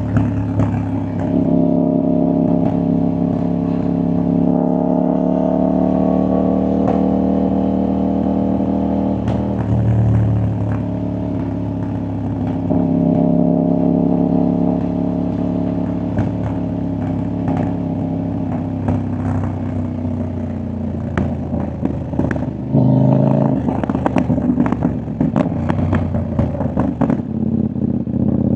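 CFMOTO 800NK's parallel-twin engine running through its exhaust while riding, its pitch shifting with the throttle. In the last third come many sharp pops and crackles from the exhaust, the overrun crackle this bike is known for.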